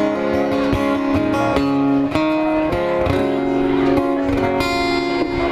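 Acoustic guitar played live with no singing, its chords ringing and changing every second or so.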